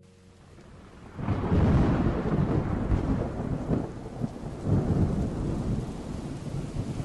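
Rain falling on water with rolling thunder: a faint rain hiss fades in, then a low rumble of thunder breaks in about a second in and swells again in waves.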